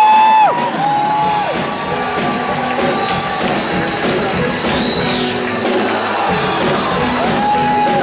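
Steel band playing: steel pans over a drum kit in a steady rhythm. A crowd cheers over it, with a few long held whoops near the start and near the end.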